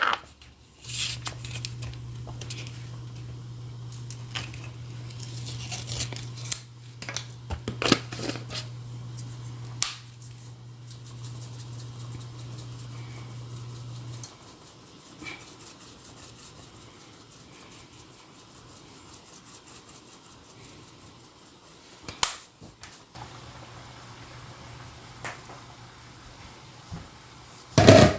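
Kitchen handling sounds while cooking: scattered clicks and knocks of containers and utensils over a steady low hum that stops about halfway and comes back near the end.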